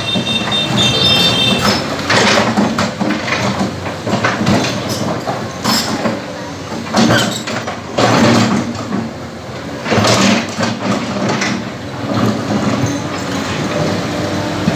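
Kobelco hydraulic crawler excavator's diesel engine running steadily while its steel bucket scrapes and drags through broken concrete and soil, with repeated loud bursts of grinding and clattering rubble.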